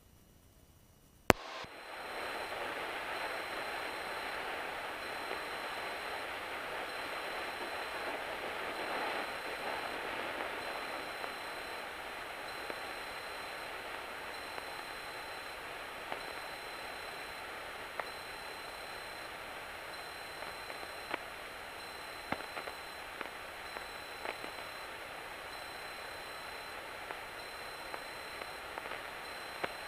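Steady hiss in a Cessna 172's cockpit audio feed. It opens with a sharp click about a second in, carries a faint steady high tone, and has scattered small clicks through it.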